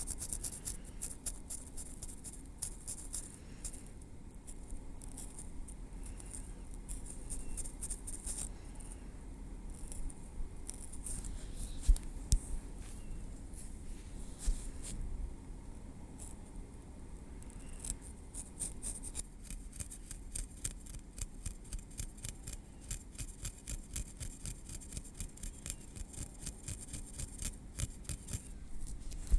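Tweezers picking and tapping through hair and over the scalp, making a run of soft, quick clicks: dense at first, sparser in the middle, then a fast, even ticking for the last ten seconds or so.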